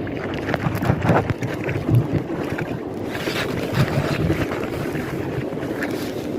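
Wind on the microphone over sea water lapping, with a few sharper knocks about one, two and four seconds in.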